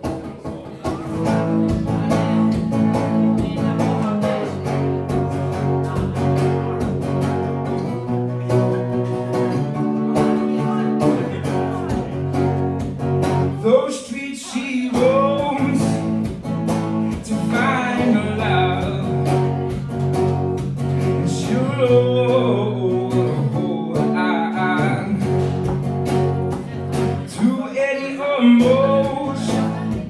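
Live solo performance: an acoustic guitar played in a steady rhythm, with a man's voice starting to sing about halfway through.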